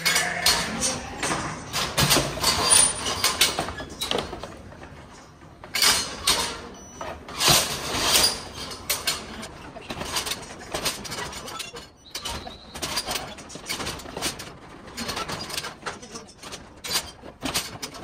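Gallagher sheep-weighing crate in use: steel gates and frame clanging and sliding as lambs are run through, with hooves knocking on the crate floor. It comes in irregular bursts of clatter, heaviest in the first few seconds and again around the middle.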